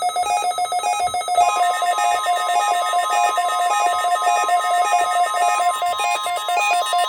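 Weather radio receiver's alarm ringing in a fast, evenly repeating warble, set off by the NOAA Weather Radio required weekly test. About a second and a half in, the steady 1050 Hz NOAA Weather Radio warning alarm tone joins underneath and holds.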